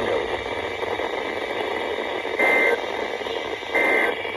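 Emergency Alert System end-of-message data bursts: two short, harsh digital buzzes about a second and a half apart, over steady radio hiss. They signal that the alert message is over.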